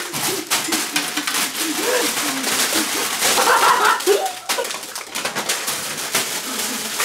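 Plastic candy bags crinkling and wrapped candy rattling as bags are handled and shaken, with a man's wordless vocal sounds, cooing and humming, over it.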